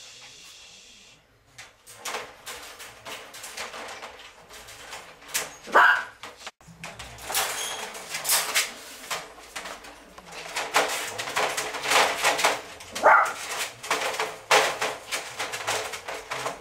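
Puppies moving about in a wire dog crate, rattling and scratching at the metal bars, with two short rising whimpers, one about six seconds in and another about thirteen seconds in.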